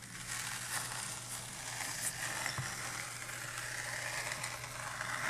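Multi-blade star cutter drawn through a slab of damp pyrotechnic star composition, a steady scraping hiss as the blades slice it into cubed stars.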